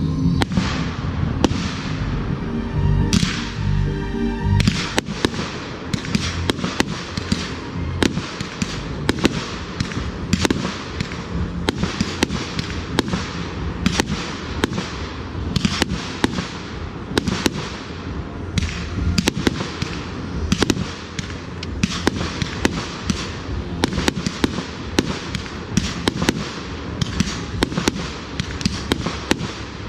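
Fireworks going off in rapid succession, a dense run of sharp bangs and crackles. Music plays under them for the first few seconds, then fades out.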